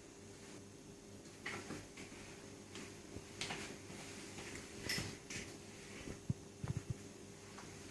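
Faint scattered clicks, taps and rustles of small metal parts being handled while a front brake lever is fitted to a mini bike's handlebar, with a few sharper clicks near the end. A steady low hum runs underneath.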